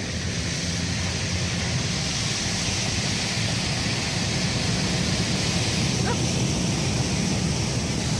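A car driving through floodwater, heard from inside the cabin: a steady rush of tyres ploughing through water, with spray thrown against the body and windows.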